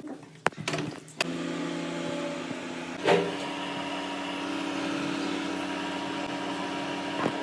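A microwave oven is started after a few clicks. It then runs with a steady electrical hum, and a clunk about three seconds in shifts the hum's tone.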